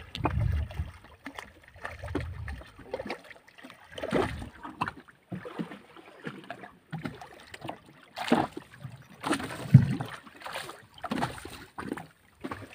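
Water slapping and splashing against the side of a small fishing boat, with irregular knocks and low rumbling gusts; the loudest knock-like splash comes a little under ten seconds in.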